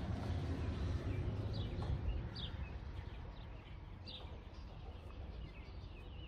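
Outdoor ambience: a few short, scattered bird chirps over a steady background hiss, with a low rumble in the first couple of seconds that then eases off.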